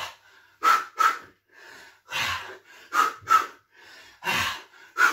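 A man breathing hard through a squat-and-punch drill. He gives two short, sharp exhalations with each pair of punches, and a longer heavy breath between them, repeating about every two and a half seconds.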